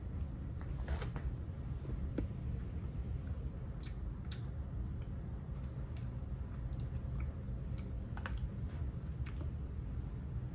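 A child chewing a soft sour gummy candy, with scattered small mouth clicks over a steady low background hum.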